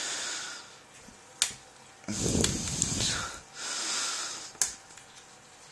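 A man breathing heavily through his nose, several loud exhales, while straining to prise a circlip off a lock cylinder, with a couple of sharp metal clicks from the tool on the lock.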